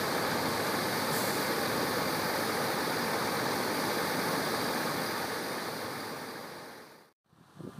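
Steady machinery noise from a New Holland combine harvester running while it unloads grain through its auger into a trailer towed by a tractor. The noise fades out and cuts off near the end.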